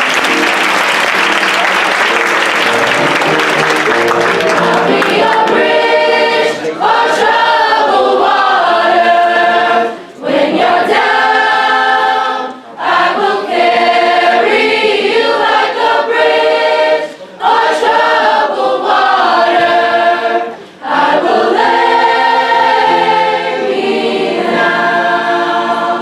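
Applause fading over the first few seconds, then a choir singing in long held phrases with brief breaks between them.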